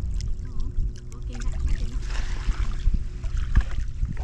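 Wind buffeting the microphone, with a steady faint hum underneath and a few light clicks. A brief rush of noise comes about two seconds in.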